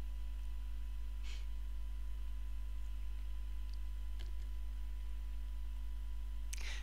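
Quiet room tone: a steady low hum with a faint constant whine above it, broken only by a brief soft hiss about a second in and a faint click about four seconds in.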